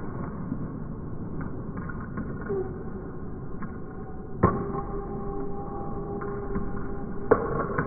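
Table tennis drive rally played back in slow motion: ball strikes on bat and table come through pitched down as deep knocks, the two loudest about halfway through and near the end, each followed by lingering ringing tones, over the low, muffled hum of the slowed-down hall.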